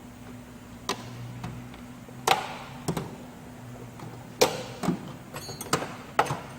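Tools and toolbox drawers being handled: a series of sharp clicks and knocks, about seven in all, the loudest about two and four and a half seconds in, over a steady low hum.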